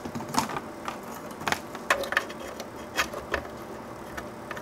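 Handling noise at a workbench: scattered light clicks and knocks as power-supply cables and a plug are handled and a small mixing console's controls are touched.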